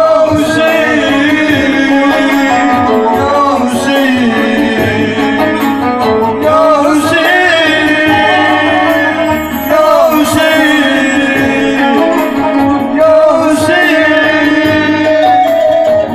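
A man singing a melismatic Shia religious lament into a microphone, the voice wavering and ornamented over sustained, steady accompanying tones.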